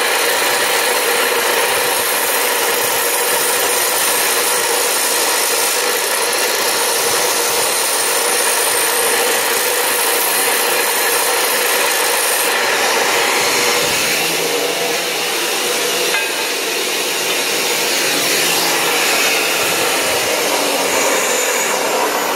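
Abrasive chop saw grinding through a metal pipe, the cut-off disc throwing sparks: a loud, steady grinding whine. The sound shifts slightly a little over halfway through.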